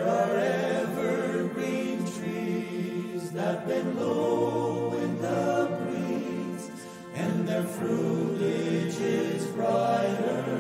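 Male choir singing in close harmony in long held phrases, dropping off briefly about seven seconds in before the next phrase begins.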